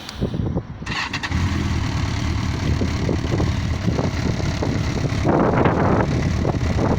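Yamaha XJ900S Diversion air-cooled inline-four motorcycle engine starting and catching about a second in, then running steadily, louder and rougher for a moment about five seconds in.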